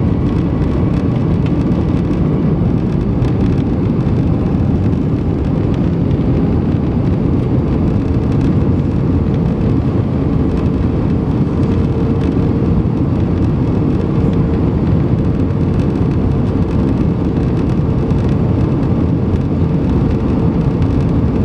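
Steady cabin noise inside an Airbus A320: the even rush of airflow and the jet engines, with a faint steady engine tone running through it.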